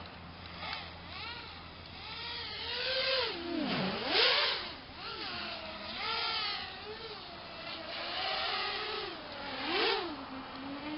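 The brushless motors of an RG210 FPV racing quadcopter in acro flight. Their whine swoops down and up again and again as the throttle changes, over a steady low hum. The deepest and loudest swoop comes about four seconds in.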